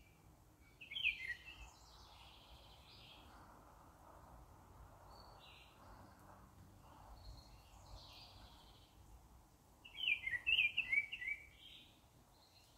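Wild birds singing: a short burst of chirps about a second in and a louder run of quick, falling chirped notes near the end, with fainter calls between.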